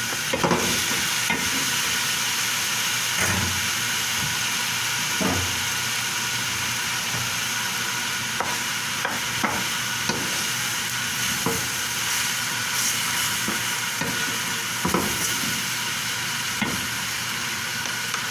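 Chicken sizzling in a hot pan as it is stirred: a steady frying hiss, with scattered knocks and scrapes of the stirring utensil against the pan.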